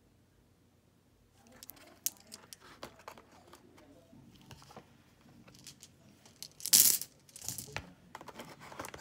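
Polished stone runes being handled and lifted out of their fitted box tray: small clicks and taps of stone with packaging rustle, starting about a second and a half in. The loudest, a short rustle, comes about seven seconds in.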